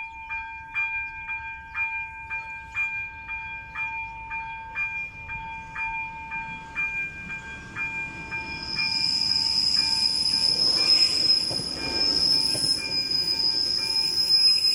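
AŽD ZV-02 electronic level-crossing bell ringing about twice a second. About eight seconds in a train arrives and passes with a running rumble and a steady high wheel squeal, louder than the bell.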